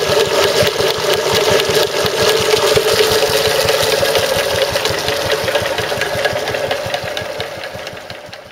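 Wolseley WD2 stationary engine running steadily, belt-driving a Stuart Turner water pump that is knocking from a failed big end bearing, with water splashing from the pump outlet. The sound fades out near the end.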